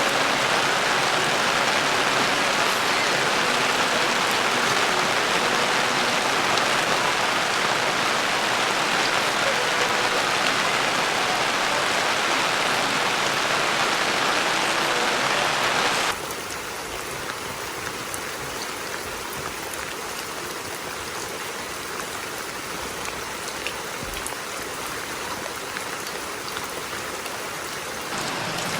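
Steady rain falling, an even hiss. About halfway through it drops suddenly to a quieter, thinner rain sound.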